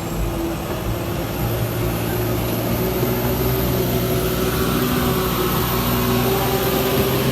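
Diesel truck engine running at a steady pitch under load, slowly growing louder.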